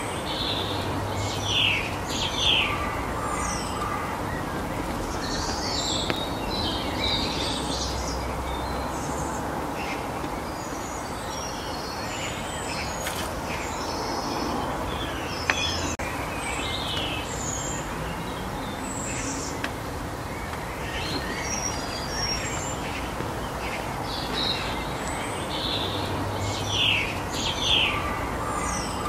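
Small songbirds chirping and calling over a steady outdoor background hiss; the short, high chirps come in clusters, busiest near the start and again near the end.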